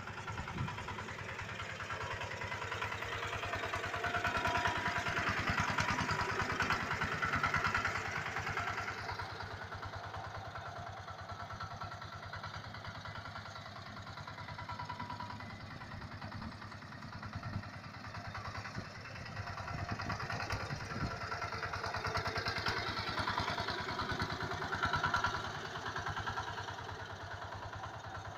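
Small engine running steadily with a rapid firing pulse, growing louder twice as it works: the homemade tractor's engine.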